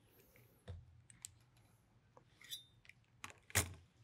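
Light, scattered clicks and knocks from handling a caliper and the FX Maverick air rifle's metal barrel-and-action assembly on a workbench, with the loudest knock about three and a half seconds in.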